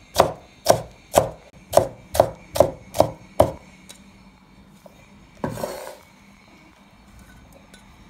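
A steel cleaver chopping down onto a wooden board, dicing a red pepper: about eight sharp knocks, roughly two a second, that stop about three and a half seconds in. A short scraping swish follows a couple of seconds later.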